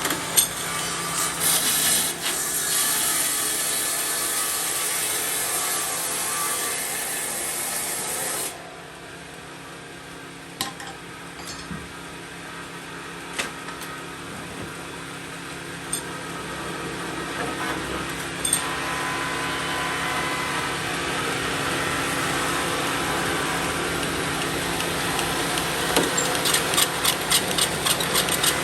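A power saw cutting through wood, the cut noise stopping abruptly about eight seconds in. A quieter stretch with a few knocks follows while the machine hum carries on, then cutting builds up again from about eighteen seconds, with rapid clicking near the end.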